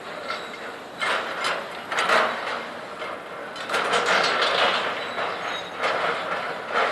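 Loader handling scrap metal in a scrap yard: repeated loud metal bangs and clanks, with a longer run of crashing about four seconds in and more bangs near the end.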